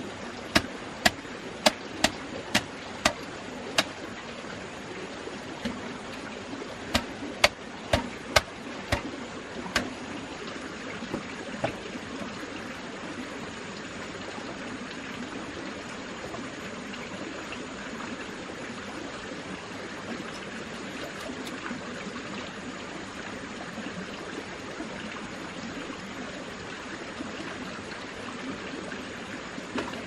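Sharp knocks on green bamboo as a crosspiece is driven into a leg joint of a bamboo table frame: a run of about seven knocks, roughly two a second, in the first four seconds, and another half-dozen around seven to ten seconds in. A steady rushing background runs underneath.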